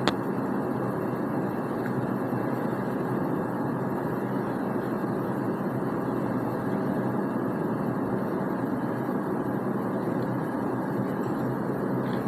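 Steady, even background noise with no distinct events, such as room or fan hum. A single short click comes right at the start.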